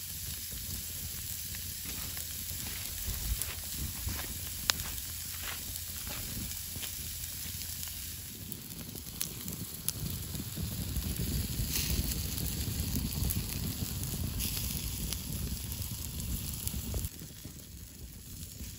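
Bacon-wrapped sausages sizzling in their own grease on a steel grill grate over a campfire, with the fire crackling in scattered sharp pops. The sizzle gets fuller and louder about eight seconds in, then drops suddenly near the end.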